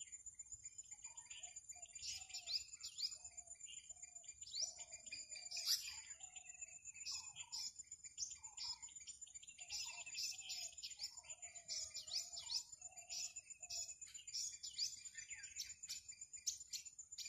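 Small birds chirping and calling in quick, repeated short notes, with one louder call about six seconds in, over a steady high-pitched insect drone.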